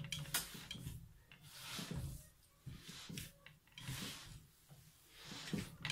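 Hands rubbing and kneading a dry, crumbly sellou mixture of toasted flour and butter in a wooden bowl: a soft scraping rustle in repeated strokes, with a few light clicks.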